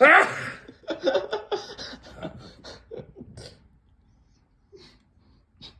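An elderly man sneezes once, loudly, with a rising pitch, and then there are about two and a half seconds of laughter.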